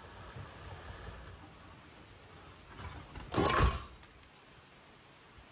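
Faint outdoor background, then one short, loud clattering knock about three and a half seconds in, from handling the knife and roasted pig on a plastic folding table during carving.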